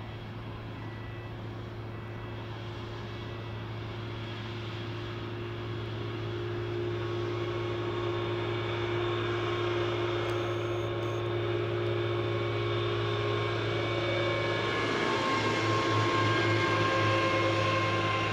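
Boeing 787-8 airliner's jet engines whining at low power as it taxis and lines up on the runway, several steady whine tones over a low hum, getting steadily louder and wavering in pitch near the end.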